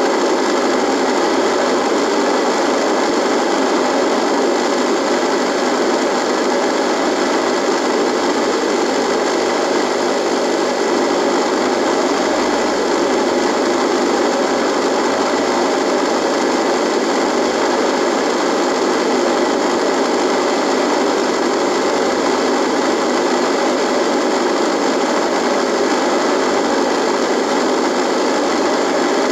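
Radio buzz: steady, unbroken noise, loud and even throughout, with a few faint steady tones in it.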